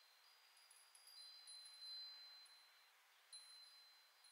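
Near silence, with faint high ringing tones that come and go several times.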